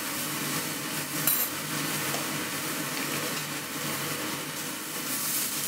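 Meat searing in a stainless steel frying pan on full heat, a steady sizzle, with a short metallic clink of cutlery on the pan about a second in.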